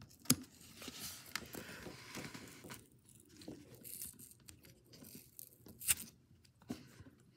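Faint scratching and tearing as fingernails pick at and peel the old grip tape off a Tech Deck fingerboard, with a couple of sharp clicks.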